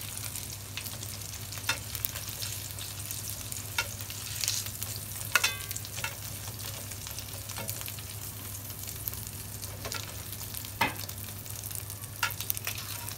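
Thin beef slices sizzling in butter and oil in a stainless-steel frying pan, a steady high sizzle. It is broken now and then by a few sharp clinks of the tongs against the pan as the slices are lifted out.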